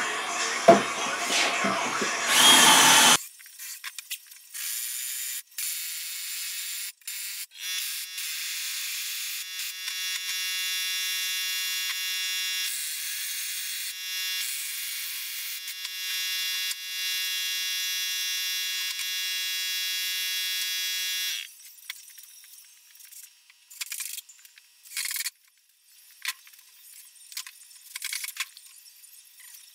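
A small electric motor whining steadily with an even, high tone, cutting in and out several times and then running without a break for several seconds. After it stops come scattered light knocks and clatter of wooden boards being handled.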